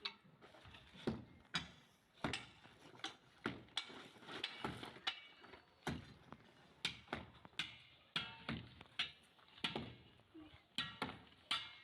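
Hand-tool strikes on a building site: a series of sharp knocks at uneven spacing, about one or two a second.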